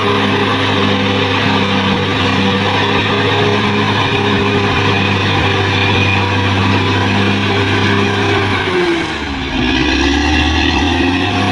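Bulldozer's diesel engine running steadily at working revs. About nine seconds in, its pitch drops sharply and then climbs back up.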